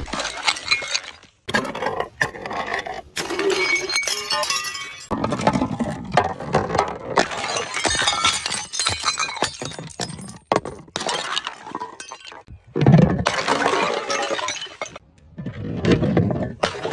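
Glass bottles being smashed and crushed: shattering, then glass shards crunching and clinking in dense crackling runs. The runs come in several separate stretches, broken by brief silences.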